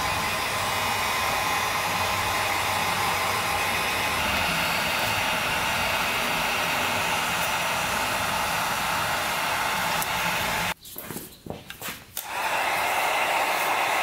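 Electric heat gun blowing hot air steadily. It cuts out for about a second and a half near the end, then runs again.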